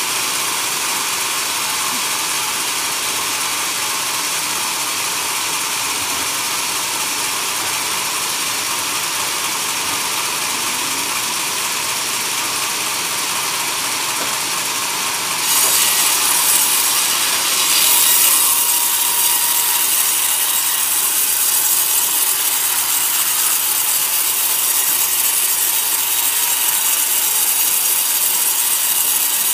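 Large band sawmill ripping a log lengthwise: a steady, loud hiss and rasp of the blade through the wood. It grows louder and brighter about halfway through and holds there.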